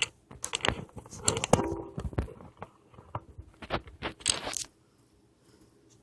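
Hands handling the plastic housing of a D-Link DAP-1650 range extender and its small screws during reassembly: an irregular run of clicks, taps and scrapes, one with a brief ringing tone about a second and a half in. The sounds stop near five seconds.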